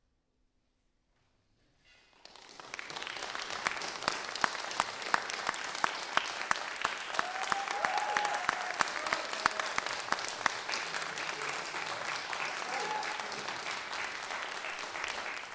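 Audience applauding, starting about two seconds in after near silence, with one clapper close by standing out in sharp, even claps for several seconds. A voice cheers briefly twice over the applause.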